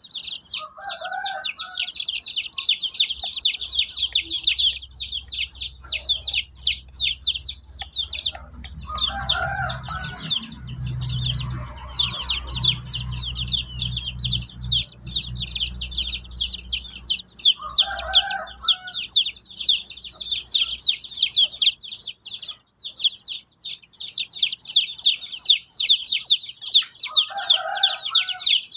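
A flock of young chicks peeping without a break, many short high falling peeps a second. Four times, about every nine seconds, an older chicken gives a short, lower call.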